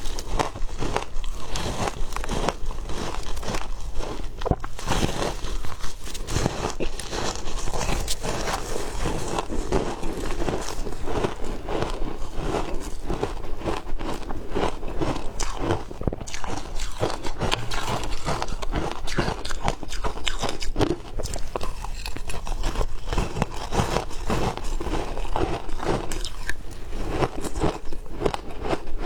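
Frozen shaved ice being bitten and chewed: a continuous run of close, crisp crunches.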